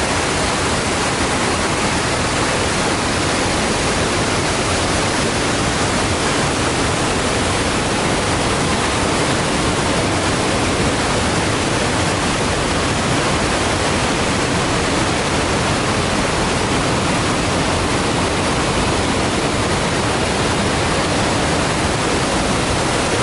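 Bypass water pouring down a concrete dam spillway: a steady, loud rush that does not let up.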